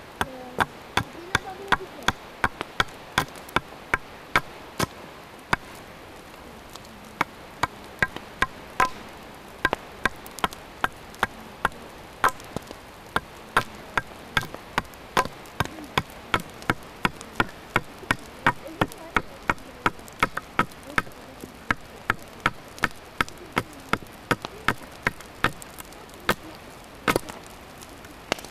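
Small hatchet hewing along a green sapling pole in quick, light, even chops, about two to three sharp strikes a second, shaving the wood flat.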